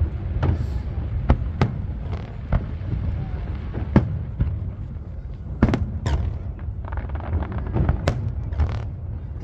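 Fireworks display: shells bursting in an irregular string of sharp bangs, sometimes two close together, over a steady low rumble.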